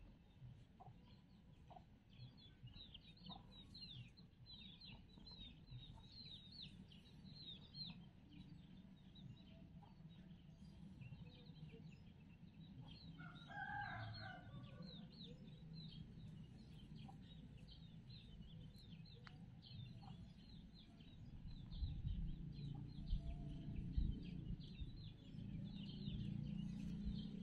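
A rooster crows once, about halfway through, over the steady high chirping of small birds. A low rumble grows louder in the last few seconds.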